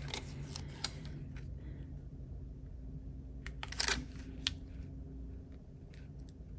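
Small clicks and a brief rustle of stickers and paper being handled and pressed down on a planner page, the loudest cluster about four seconds in, over a faint steady hum.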